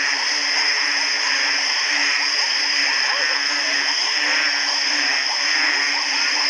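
Dense night chorus of frogs, many short overlapping calls sounding at once over a steady high-pitched drone.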